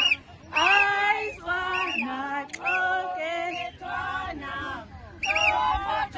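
Women's voices singing a traditional dance song in short, held phrases with brief breaks between them.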